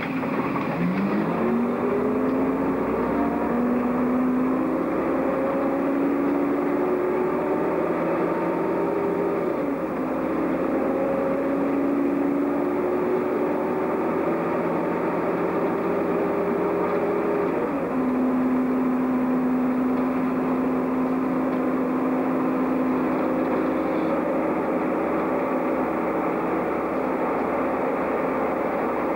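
City bus's diesel engine and drivetrain, heard from the driver's cab as the bus pulls away and accelerates. The engine note rises, drops back at gear changes about ten and eighteen seconds in, then holds steady as the bus cruises, over constant road noise.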